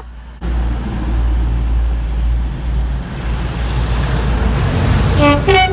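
A train passing through the station at speed with a loud, steady rumble. About five seconds in it sounds its two-tone horn, a lower note then a higher one.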